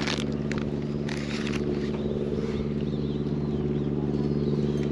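Steady engine hum, with a few clicks and scrapes in the first second and a half.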